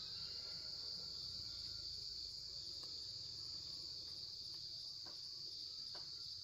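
Steady, high-pitched insect chorus, with a few faint clicks near the end.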